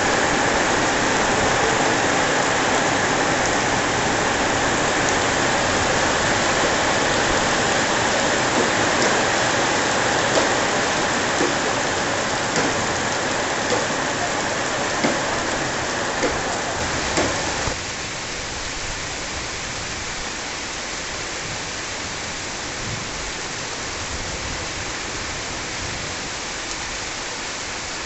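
Heavy downpour of rain falling steadily on concrete paving and roofs, with a few louder close drips. About two-thirds of the way through it cuts abruptly to a softer, more even rain hiss.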